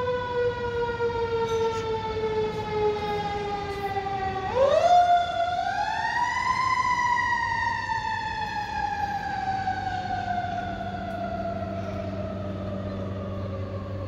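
A siren wailing off in the street. Its pitch sinks slowly, then climbs steeply about four and a half seconds in and slowly sinks again, the slow fall of a mechanical siren winding down. A low steady hum comes in under it near the end.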